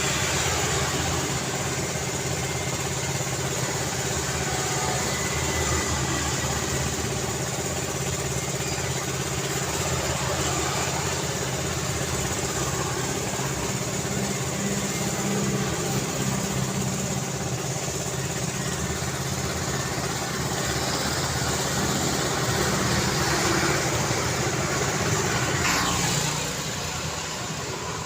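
Continuous highway traffic: a steady mix of engine hum and tyre noise from passing vehicles, easing a little near the end.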